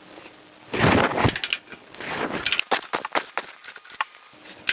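Ratchet-head torque wrench clicking rapidly as its handle is worked back and forth, tightening an engine-mount nut to 33 ft-lb. A burst of handling noise comes about a second in.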